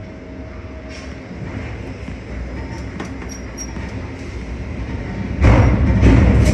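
Ship-to-shore container crane hoisting its empty spreader up out of the ship's cell, heard from the operator's cab: a low mechanical rumble that builds steadily and turns sharply louder about five seconds in.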